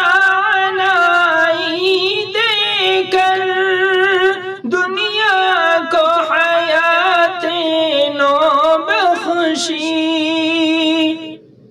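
A man singing a naat, an Urdu devotional poem, unaccompanied, drawing long notes that bend and waver in ornaments. The voice stops shortly before the end.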